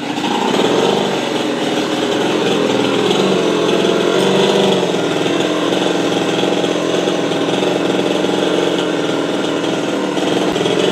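Two-stroke chainsaw running at high speed, cutting into a coconut palm trunk. It picks up about a second in and then holds a steady, loud drone.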